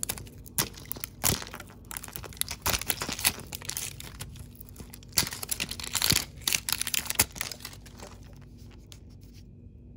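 Thin plastic film wrapper being torn and peeled off a plastic surprise-toy ball, with crinkling and sharp crackles that die down near the end.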